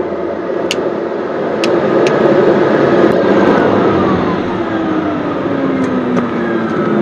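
PT6A-67P turboprop engine running loud, heard from inside the cockpit; from about three seconds in its whine falls steadily in pitch as power comes off at the end of a ground performance run. A few sharp clicks in the first two seconds.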